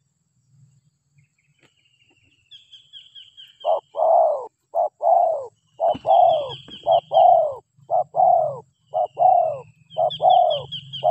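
Spotted doves cooing: short, falling coos that start a few seconds in and repeat at about two a second. Three times, a small bird adds a quick run of high, falling chirps.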